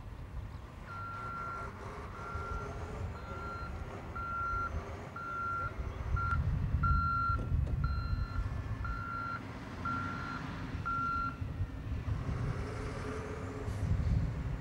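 Reversing alarm of a heavy vehicle, about eleven short beeps at one a second, stopping about eleven seconds in, with the vehicle's engine rumbling underneath.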